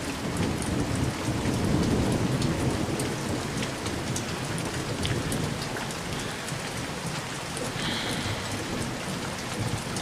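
Steady rain falling and pattering on surfaces, with a low rumble of thunder that builds over the first couple of seconds and then slowly dies away.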